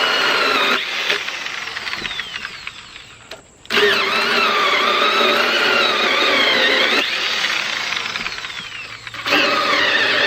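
Black & Decker Alligator Lopper, a corded electric mini chainsaw, running with a high whine whose pitch wavers as it cuts through a log. Twice the trigger is released and the motor winds down with a falling whine, then it starts up again sharply, about a third of the way in and near the end.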